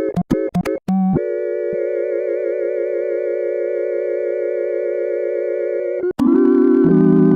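Arturia MiniBrute analog synthesizer played as a polyphonic organ patch through the M2P mono-to-poly plugin: a few short staccato notes, then a chord held for about five seconds with a slight waver in pitch, then a new, lower chord struck about six seconds in.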